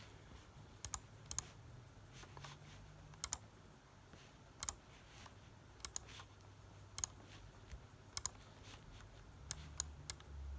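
Laptop keyboard keys clicking sporadically: single taps and quick pairs, spaced irregularly about a second apart, with no music audible.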